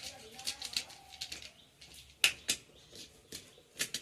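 Irregular sharp clicks and taps from handling a flexible tripod, with the loudest pair just after two seconds in.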